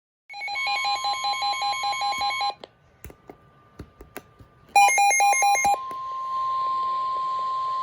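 Emergency alert tones: rapid electronic beeping for about two seconds, a second short burst of beeps about five seconds in, then a long steady single-pitch warning tone over radio hiss, announcing a tornado warning.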